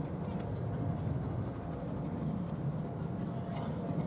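Steady low rumble of the Peppercorn A1 steam locomotive 60163 Tornado and its train approaching in the distance.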